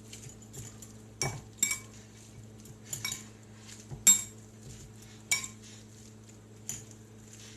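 A utensil clinking against a bowl as instant ramen noodles are stirred: irregular clinks, about seven over a few seconds, some louder than others.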